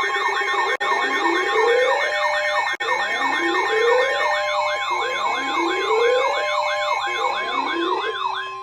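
Several electronic siren sounds layered together: a fast warbling wail about twice a second, a second tone that climbs in pitch roughly every couple of seconds, and steady tones under them. The sirens cut off near the end.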